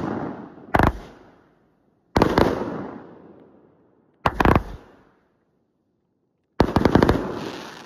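Aerial fireworks bursting overhead: a loud bang just under a second in, another about two seconds in, a quick double bang about four seconds in, and a rapid string of several bangs near the end, each one trailing off.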